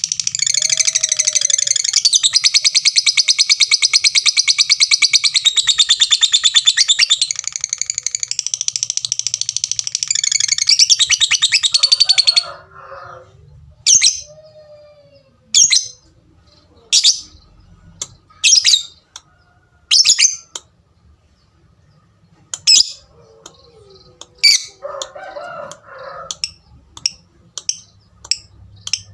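Lovebird giving a long, very fast, high chattering trill (the 'ngekek') that stops suddenly about twelve seconds in, then single sharp 'tik' calls about once a second.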